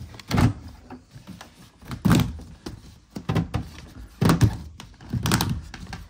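Corrugated plastic exhaust hose of a Hisense portable air conditioner being pulled and stretched by hand, giving several short thunks and plastic rustles spaced about a second apart.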